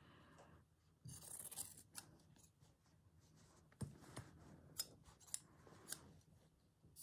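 Fabric scissors cutting cloth: a short, soft shearing snip about a second in, followed by several light scattered clicks.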